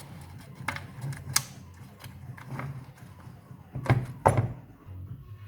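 Light clicks and knocks of an Audi 2.0 TFSI intake manifold being handled as its broken plastic flap pieces fall out, with two louder knocks about four seconds in. A low steady hum runs underneath.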